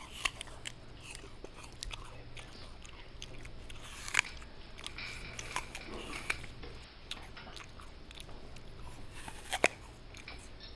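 Dinner-table sounds: cutlery clicking and clinking against crockery at irregular moments, with chewing, over a faint low hum. Two clicks stand out, about four seconds in and near the end.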